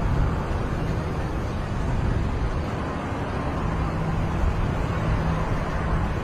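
Steady low rumble of a vehicle engine running, with a faint hum that comes up in the middle.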